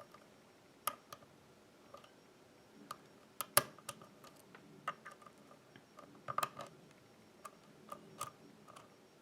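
A hook pick probing the pins of a pin-tumbler lock under light tension, making scattered small metallic clicks and ticks at irregular intervals. The loudest click comes about three and a half seconds in, and there is a quick cluster of clicks a little after six seconds. No pin is setting yet: the pins are stiff or springing back.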